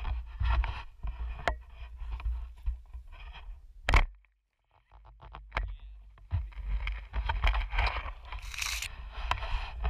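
Wet grass and weeds brushing and scraping against a frog gig pole and the camera as they are pushed through pond-edge vegetation, with low handling rumble on the microphone. A single sharp knock about four seconds in.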